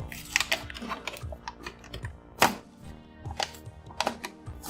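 Stiff plastic blister packaging being cracked and pried open by hand: a run of sharp clicks and crackles, the loudest about two and a half seconds in. Soft background music plays underneath.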